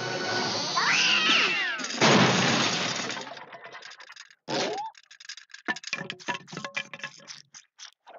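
Cartoon sound effects: a cat's wavering cry over music, a loud crash about two seconds in, then a rapid run of sharp clinks and clatters, like stacked plates knocking together.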